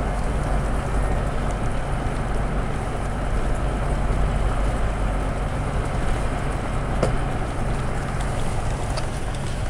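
A jeep driving on a rough gravel road, heard from inside the cabin: a steady low engine and road rumble, with an occasional brief knock or rattle from the bumpy surface.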